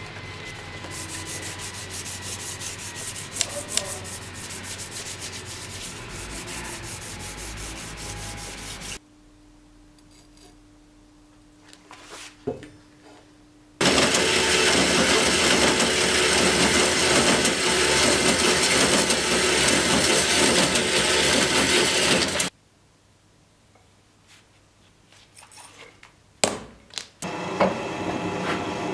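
Abrasive work on a Damascus steel knife blade: a steady gritty hiss in long stretches that start and stop abruptly, dropping out about nine seconds in and again about two-thirds of the way through. A low steady hum fills the first gap, and a few clicks come before the noise resumes near the end.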